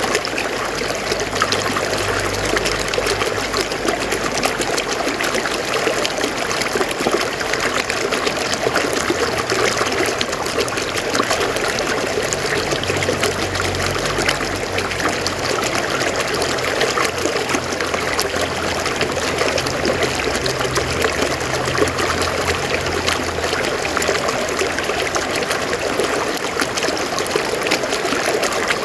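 River water flowing and splashing over rocks in a steady, even rush.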